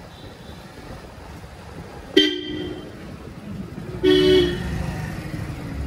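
A vehicle horn honks twice: a short beep about two seconds in and a slightly longer one about four seconds in. Underneath, a motorcycle engine runs with a low, steady sound.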